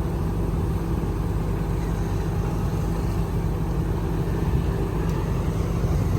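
Excavator's diesel engine running steadily under work, a constant low drone with no strikes or breaks.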